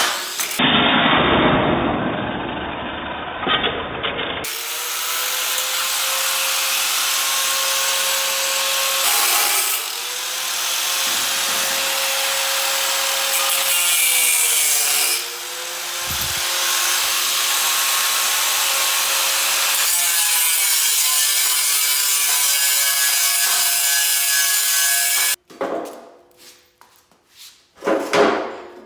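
Angle grinder cutting a notch, its motor whine dipping briefly in pitch a couple of times as the disc bites; it stops abruptly near the end, followed by a few faint knocks.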